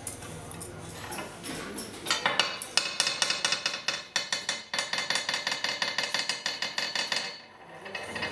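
Rapid light metallic tapping, about five or six taps a second, from a brass hair-setting form being tapped to even up a bundle of brush hair. It starts about two seconds in and stops shortly before the end.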